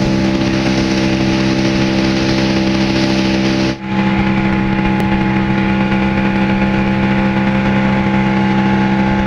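Speedboat engine running steadily at speed, with the rush of water and wind against the hull. There is a short break about four seconds in, after which the engine tone is slightly different.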